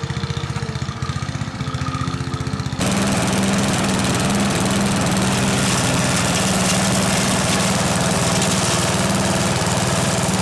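Small petrol engine running steadily, then opened up to higher revs about three seconds in and held there.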